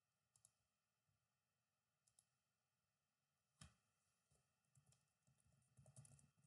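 Near silence with faint computer clicks: a few single clicks, then a quick run of soft keyboard typing near the end.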